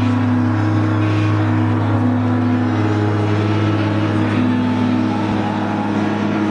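Atmospheric droning music: a steady low bass drone under held higher notes that shift from one pitch to another every second or so.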